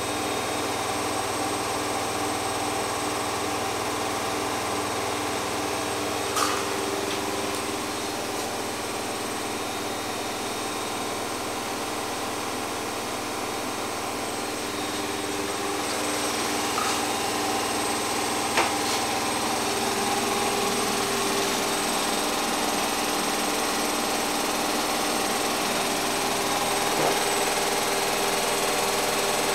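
A steady mechanical whirring hum, with a few faint knocks, the clearest about two-thirds of the way in.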